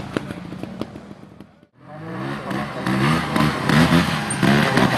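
Trials motorcycle engine blipping and revving in short bursts, pitch rising and falling, with sharp clicks in the first part. The sound drops out briefly just before two seconds in, then the revving comes back louder.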